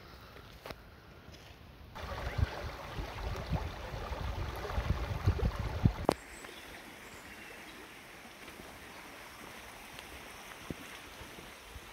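River water rushing over shallow stones for about four seconds, with gusty low rumbling under it; it cuts off suddenly, leaving only a faint steady outdoor hiss.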